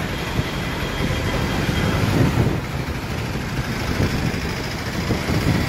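Street traffic noise: motor vehicle engines running, a steady low rumble.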